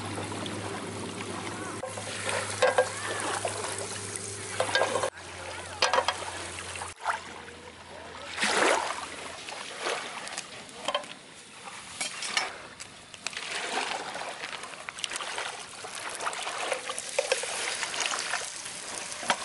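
Butter and a burger patty sizzling in a frying pan on a portable gas stove, with scattered clicks and scrapes from a knife and tongs, over a steady hiss.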